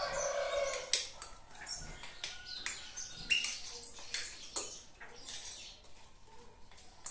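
A metal spoon stirring batter in a bowl, scraping and clinking irregularly against the sides.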